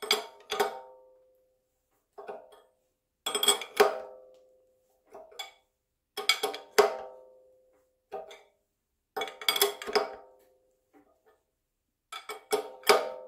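Hand tools working on a harmonic balancer installation tool's threaded nut: sharp metal clicks come in short bursts about every three seconds, each burst followed by a brief metallic ring.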